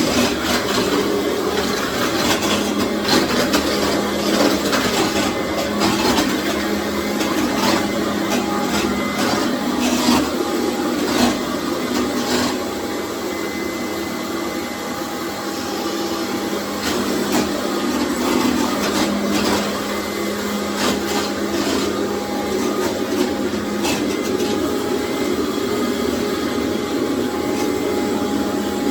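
Commercial vacuum cleaner running steadily over a tile floor, a constant motor hum with frequent sharp clicks and rubbing scrapes as it is worked across the tiles.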